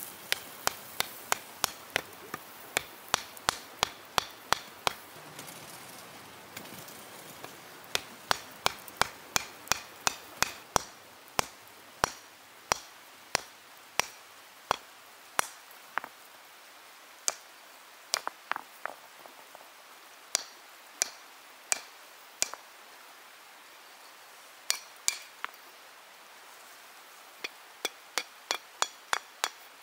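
Hand-held stone hammer striking a glowing iron axe blank on a stone anvil, in runs of steady blows about two a second with a few pauses of two or three seconds; many blows end in a short metallic clink.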